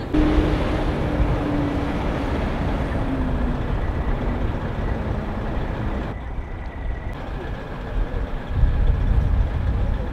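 Heavy truck engine running steadily, a low rumble, with a droning note that sags slightly in pitch over the first few seconds.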